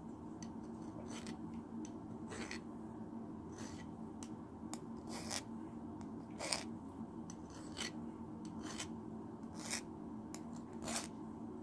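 Hand file rasping against the point of a metal throwing spike, in short strokes about once a second.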